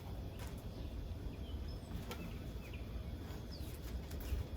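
Faint, short bird chirps over a steady low rumble of outdoor ambience, with a few brief light rustles or clicks of handling.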